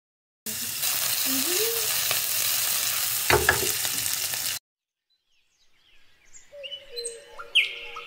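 Chopped onions sizzling in hot oil in a saucepan, starting abruptly about half a second in and cutting off after about four seconds, with a metal clink partway through. After a short silence, birds calling fade in and grow louder near the end.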